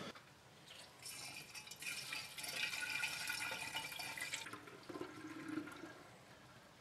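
Cooled wort pouring through a funnel into a one-gallon glass jug, splashing and foaming onto the yeast cake as the second stage of a yeast starter is pitched. The pour starts about a second in and tails off after about four and a half seconds.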